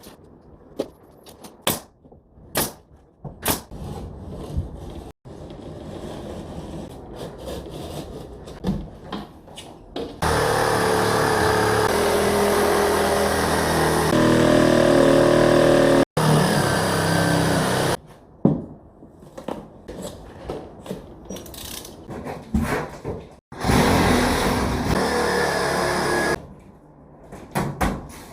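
Construction work sounds: scattered knocks and clicks, then a motorized power tool running steadily for several seconds, cut off abruptly, and running again briefly near the end.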